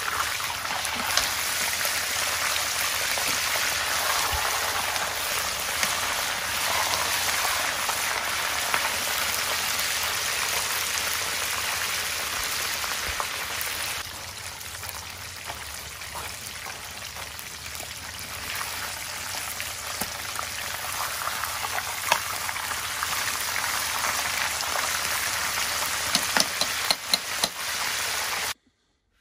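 Battered half chicken deep-frying in a pot of hot oil: a steady crackling sizzle. It drops quieter about halfway through and then builds again, with a few sharp pops near the end before it cuts off suddenly.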